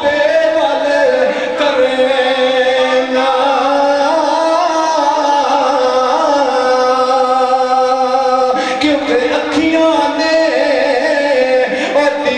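A man singing or chanting a devotional recitation in long, ornamented held notes that glide slowly up and down, with brief breaks between phrases.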